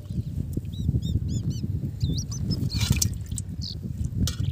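Fish splashing in water in an aluminium pot, with small birds chirping in short repeated notes about a second in. An uneven low rumble runs under everything.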